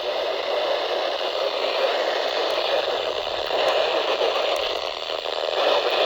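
Weather radio receiver hissing with steady static, tuned to a weak, distant NOAA Weather Radio station buried under the noise.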